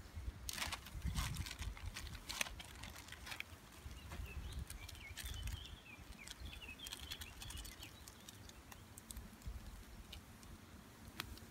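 Outdoor ambience: an uneven low rumble of wind on the microphone, a few sharp clicks in the first few seconds, and a bird chirping faintly in the middle.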